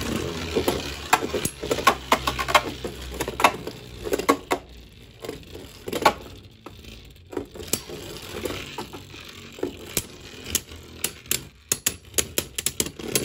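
A Hasbro and a Takara Tomy Beyblade Burst top spinning and clashing in a clear plastic stadium: a whirring hiss with many irregular sharp plastic clicks as they hit each other and the stadium walls.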